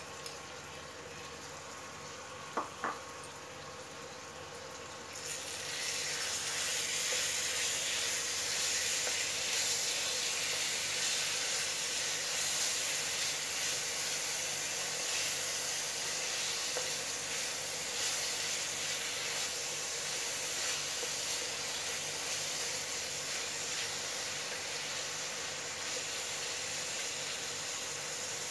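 Marinated chicken and onions frying in a pan, sizzling as they are stirred with a wooden spatula; the sizzle swells to a steady hiss about five seconds in. A single light knock comes a few seconds in.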